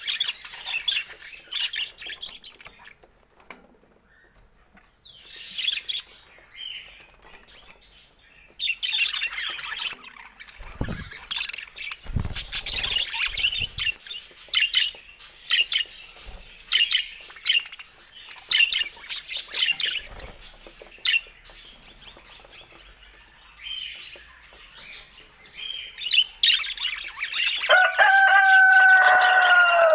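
Budgerigars chattering and chirping in quick warbles, with a few wing flutters about a third of the way in. Near the end a louder, drawn-out call slides down in pitch.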